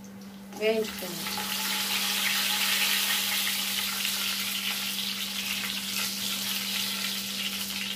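Tempering seeds and dried red chillies sizzling in hot oil in a kadai, stirred with a slotted spoon. The sizzle starts about a second in, builds, then holds steady.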